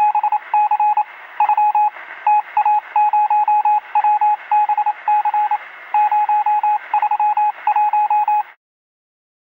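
Electronic beeping of one steady pitch, keyed rapidly in short and longer pulses over a faint radio-like hiss. It cuts off suddenly about eight and a half seconds in, leaving silence.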